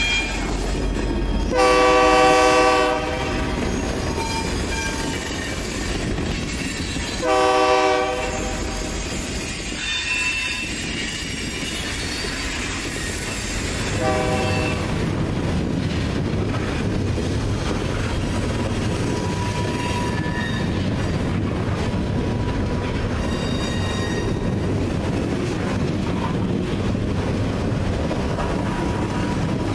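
Freight train of coal hopper cars rolling by with steady wheel clatter and rumble, while the locomotive's multi-tone air horn sounds two long blasts a few seconds apart and a short third blast. From about halfway on, a heavier steady rumble of the diesel locomotives hauling the train, with faint squeal from the wheels.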